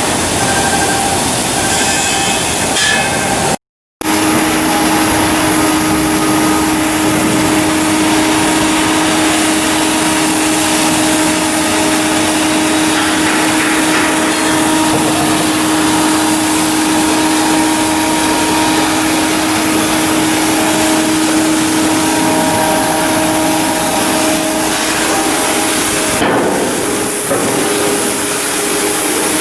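Steady, loud running noise of shipyard machinery, with a constant hum held through most of it. The sound cuts out completely for a split second about four seconds in.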